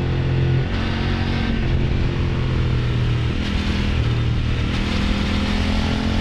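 Kove 800X Pro's parallel-twin engine and exhaust under way, its note holding steady and then shifting pitch several times as the throttle and revs change through the bends, with wind noise over it.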